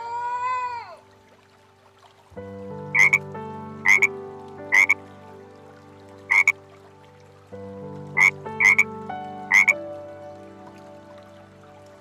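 A frog croaking: seven short, sharp calls in two groups, over steady held background tones.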